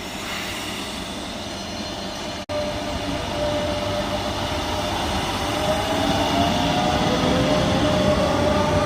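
Electric Rodalies commuter train running through the station, its rumble growing louder with thin motor whines that slowly fall in pitch. There is a brief break in the sound about two and a half seconds in.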